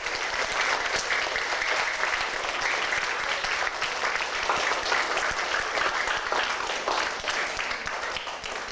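Audience of schoolchildren applauding, a dense patter of clapping that thins out near the end.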